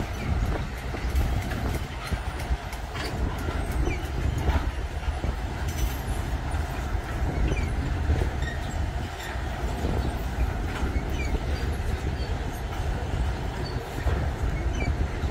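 Train running past, a steady low rumble with scattered clicks of wheels on the rails.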